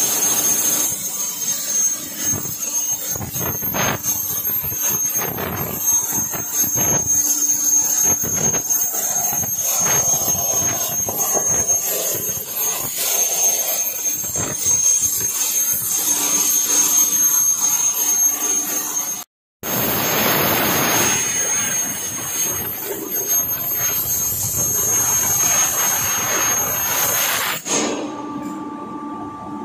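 CNC plasma cutting machine's torch arc running on steel plate, arc-marking frame and bracket lines: a loud steady hiss with a high whine over it and crackling throughout. The sound breaks off for a moment about two-thirds through, and near the end the arc stops, leaving a lower machine hum.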